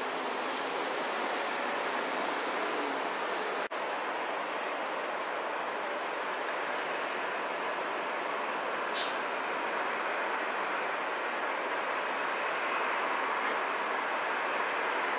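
Boeing 747's jet engines running steadily as the airliner rolls along the runway, a constant roar that grows slightly louder near the end, with a brief break about four seconds in.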